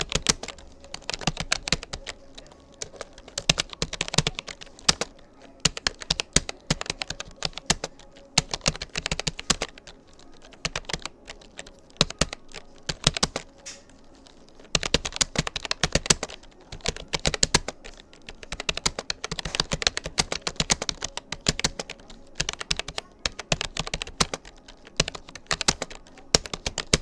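Rapoo computer keyboard being typed on at a steady touch-typing pace, runs of rapid key clicks broken by short pauses.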